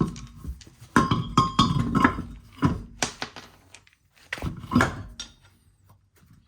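Car wheel and tire being fitted back onto the hub: a run of heavy metallic thunks and clanks with brief ringing, then a few more knocks about four and a half seconds in before it goes quiet.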